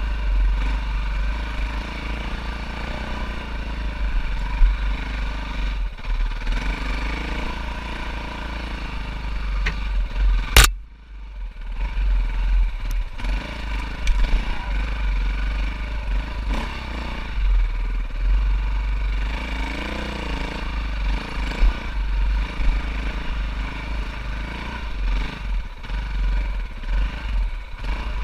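Four-stroke single-cylinder enduro dirt bike engine running under way on a trail, its pitch rising and falling with the throttle. A sharp click about ten seconds in.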